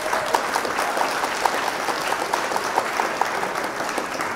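Audience applauding: a room of people clapping steadily, with one nearby clapper's claps standing out at about four a second.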